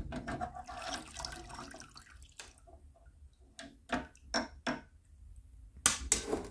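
Water splashing and dripping as a Skoda Superb hood lock is lifted out of an ultrasonic cleaner's tank, followed by a run of short sharp clicks and knocks from the wet metal lock and basket in the second half.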